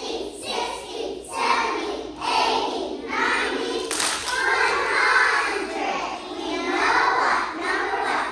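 A group of preschool children singing a song together in unison.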